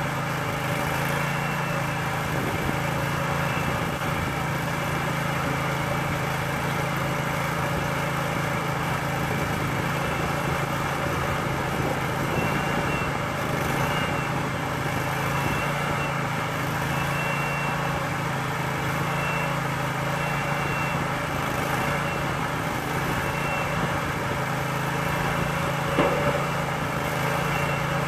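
Engine on an Aust-Mech ADOG drive-over grain pit running steadily, driving its hydraulics as the drive-over ramps are raised. A single knock sounds near the end.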